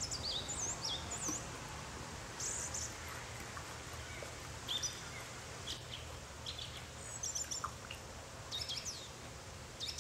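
Small birds chirping: short, high calls and quick pitch sweeps, scattered through, over a steady low background noise.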